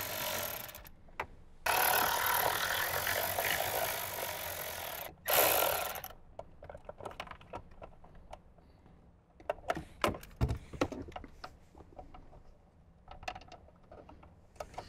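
Cordless electric ratchet with a 9/32 socket running in three bursts, the middle one about three seconds long, as it backs out the screws holding a Jeep Wrangler JK's Uconnect module. After the last burst there are scattered light clicks and knocks of the screws and plastic module being handled.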